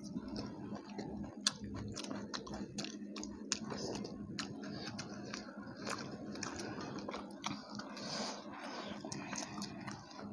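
Two people chewing and biting deep-fried puri dipped in haleem, close to a lapel microphone: irregular wet mouth clicks and soft crunches, over a faint steady hum.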